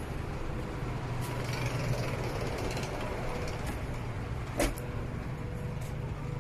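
Steady low running rumble of a high-speed train, with a single sharp knock about four and a half seconds in.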